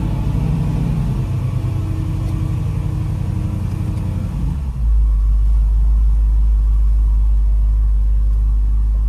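Car engine running just after being started, heard from inside the cabin. About five seconds in, the engine note gives way to a steady low rumble as the car moves off.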